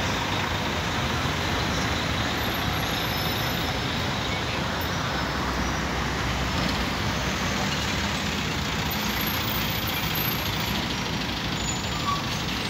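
Street traffic with bus and car engines running, a steady wash of road noise without distinct events.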